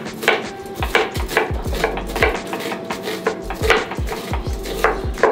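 Kitchen knives chopping on plastic cutting boards, a quick, uneven run of knocks, several a second, from more than one person cutting at once.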